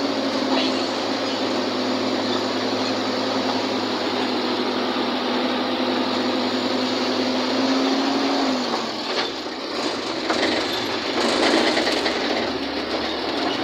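Engine and road noise heard from aboard a slow-moving vehicle: a steady hum that drops away about eight and a half seconds in, leaving an uneven rumble.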